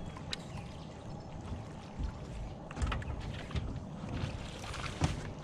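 Water lapping against a bass boat's hull over a low steady rumble, with a few light knocks: one just after the start, one around the middle and one near the end.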